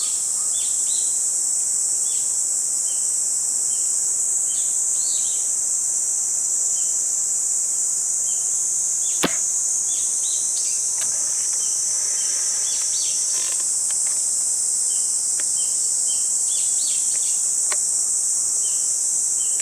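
Spring-powered airsoft sniper rifle (a VSR-10 Pro Sniper custom) firing once, a single sharp snap about nine seconds in, over a steady high insect chorus with scattered bird chirps. A fainter click comes near the end.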